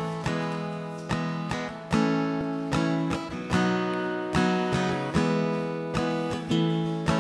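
Acoustic guitars strumming chords in a steady, repeating rhythm: the band's instrumental introduction, with no singing yet.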